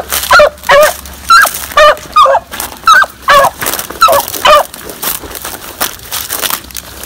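Hound barking in a steady string of short, sharp calls about twice a second while running a rabbit on scent. The calls stop about four and a half seconds in.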